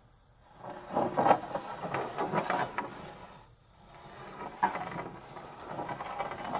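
Metal speed square and carpenter pencil dragged along the edge of a rough-sawn hemlock board, scraping, in two long strokes with a short pause about three and a half seconds in.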